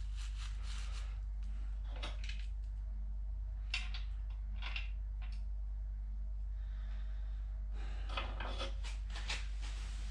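Scattered light clicks, rubs and rustles of hands working on an engine, with a denser run of clicks near the end, over a steady low hum.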